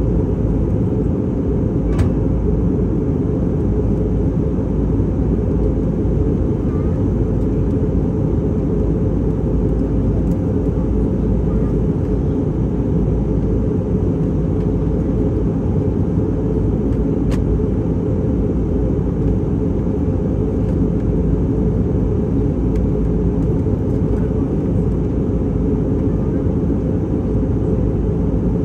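Steady low cabin noise of an airliner in flight, an even rumble from the engines and airflow that does not change.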